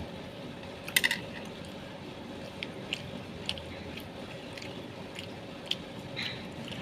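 A person biting and chewing grilled meatballs up close: a loud cluster of sharp clicks about a second in, then scattered smaller mouth clicks, over steady low background noise.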